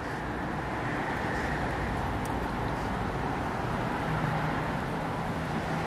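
Distant road traffic: a steady rumble of passing cars, with a faint low hum joining about four seconds in.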